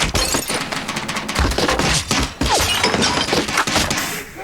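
A fast, dense run of knocks and clatter of objects striking one another, from a TV commercial's sound effects, dying down shortly before the end.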